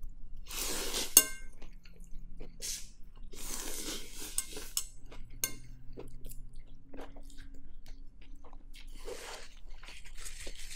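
Eating pho: rice noodles slurped in several hissing pulls, with chewing between them. A sharp click about a second in is the loudest sound, with smaller clicks later.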